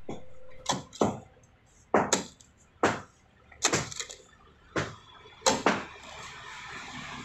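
Pickaxe striking packed earth and tree roots, about ten sharp hits, some in quick pairs, roughly one or two a second.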